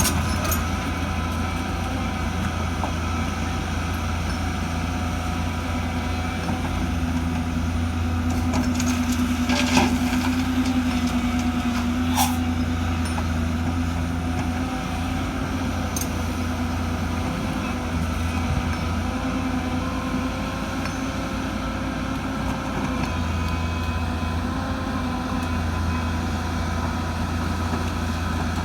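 Excavator's diesel engine running steadily while loading sand into dump trucks, with a few sharp knocks around the middle.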